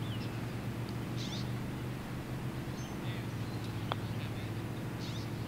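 A single light click of a putter striking a golf ball about four seconds in, over a steady low machine hum.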